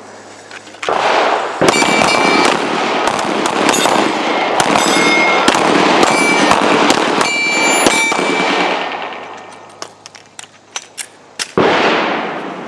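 Several handguns firing in a rapid, overlapping volley of shots for several seconds, thinning to scattered single shots near the end.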